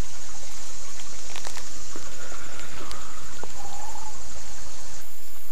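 Steady rushing of water from a small spring running into a rocky creek pool, with a high insect drone over it. A couple of faint bird calls come in the middle.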